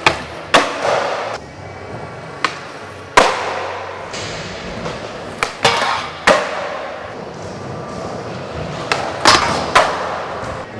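Skateboards on a metal handrail and a concrete floor: wheels rolling, trucks knocking onto the rail and grinding down it, and boards slapping down on landing. About nine sharp knocks come through the clip, each ringing out in the echoing metal building, with a scraping hiss after several of them.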